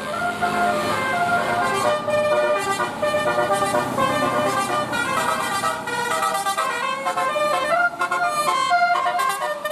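Indonesian 'telolet basuri' multi-tone bus horn playing a quick melody of short stepped notes, several tones sounding together.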